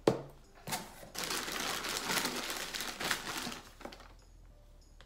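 White packing wrap crinkling and rustling as a product is pulled out of a shipping box and unwrapped by hand, from about a second in until near the four-second mark. A short knock comes right at the start.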